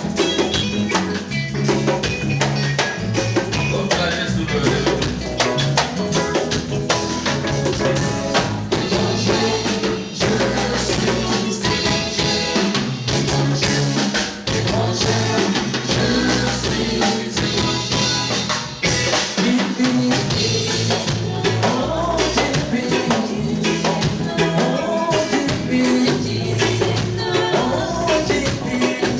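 Live band playing a song at full level, with a drum kit keeping a steady beat under bass and other instruments, and some singing.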